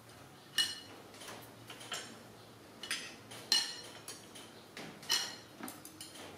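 Metal serving tongs and ceramic dishes clinking as food is served: a handful of separate sharp clinks, each with a short ringing.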